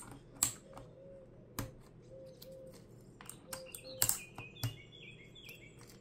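A few sharp plastic clicks and short squeaky chirps as keycaps are pried off the AJAZZ AK992 mechanical keyboard's hot-swap switches with a keycap puller.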